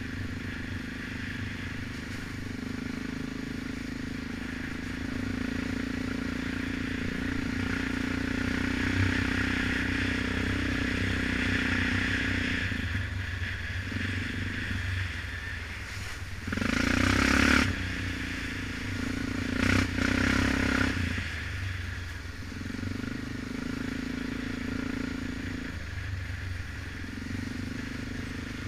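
Single-cylinder four-stroke ATV engine running at riding speed, with its pitch dipping and rising several times as the throttle changes. About halfway through, two loud rushing noises a few seconds apart briefly cover it.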